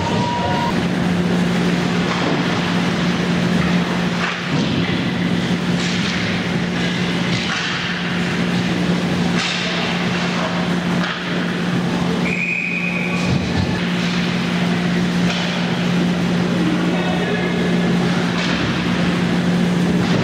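Ice hockey play in an arena: sticks and puck clacking and bodies thudding against the boards over a steady low hum, with a brief high whistle-like tone about twelve seconds in.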